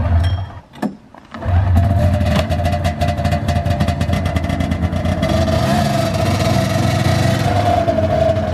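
Polaris 340 Touring snowmobile's two-stroke engine being started: a brief first attempt that fades, then it catches about a second and a half in and keeps running steadily with a constant whine.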